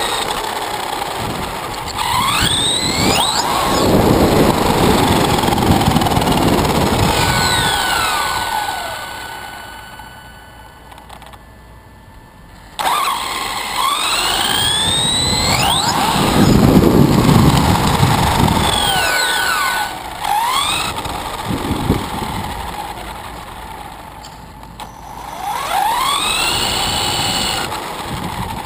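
Electric RC buggy's Tekin 4600kV four-pole brushless motor whining, its pitch sweeping up and down again and again as the throttle is punched and let off, over drivetrain and tyre noise on asphalt. It eases off for a few seconds around ten seconds in, then comes back suddenly.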